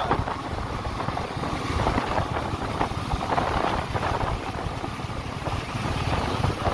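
Royal Enfield Meteor 350's single-cylinder engine running steadily while the motorcycle cruises, under a constant rush of wind buffeting the microphone.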